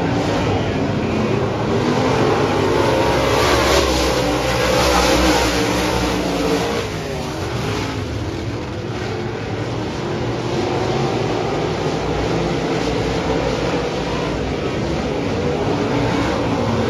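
A pack of UMP DIRTcar modified race cars racing on a dirt oval, several V8 engines running hard and overlapping. The sound swells as the cars come past a few seconds in and eases a little in the middle.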